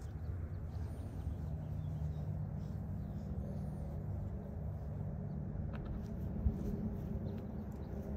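Outdoor ambience: a low steady rumble, with a couple of faint bird chirps early on and a single soft knock about six and a half seconds in.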